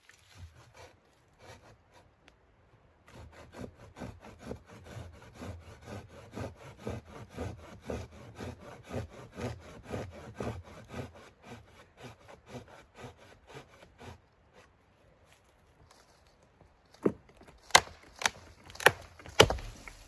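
Hand pruning saw cutting through a dead branch with steady back-and-forth strokes, about two a second. Near the end come about five sharp cracks, loud, as the branch is stepped on and snapped at the saw cut.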